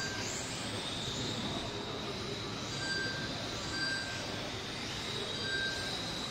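Tamiya F1 radio-controlled race cars' electric motors and gears whining as the cars lap the track. A steady high whine, with short higher tones and brief rising whines coming and going as cars speed up and pass.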